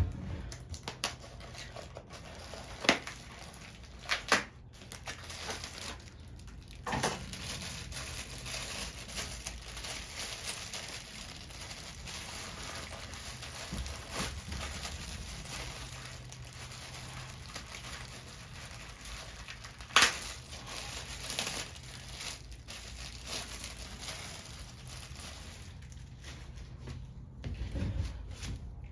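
Packaging crinkling and crumpling as a new air filter is unwrapped, with a few sharp clicks.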